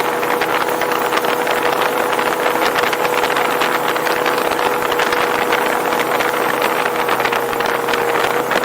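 Boat engine running steadily at speed, a constant hum under a loud, even rush of noise.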